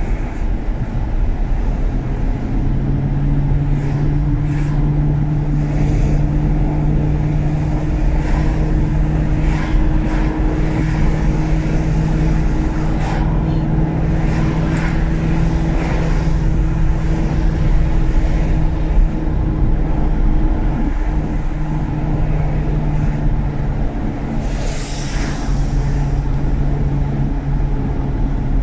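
BMW E39 535i's V8 engine and road noise while the car drives at a steady speed. After a few seconds the engine settles into an even drone with a low rumble under it. A brief hiss comes near the end.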